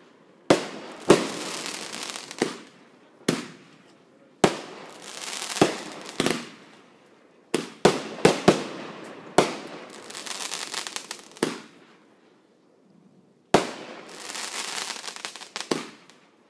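Consumer aerial fireworks shells launching and bursting: a string of about fifteen sharp bangs, several followed by a crackling hiss that lasts a second or two. There is a lull of about two seconds near the end before the last few bangs.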